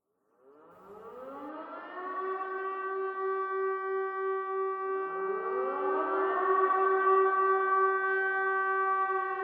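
Civil-defence-style outdoor warning siren winding up from silence to a steady multi-tone wail. About five seconds in, a second siren winds up and joins it.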